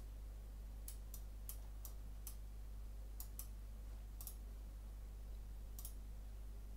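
Computer mouse clicking: about ten sharp clicks at irregular spacing, some in quick pairs, over a faint steady low hum.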